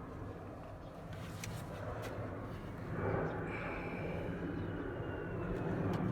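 Steady low mechanical hum that grows louder about three seconds in, with a faint high whine that slowly falls in pitch.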